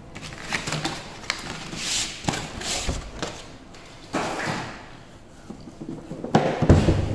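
Makita hard plastic tool carry case being handled and turned on a table: a series of plastic knocks and rubbing scrapes, then a heavier thump about six and a half seconds in.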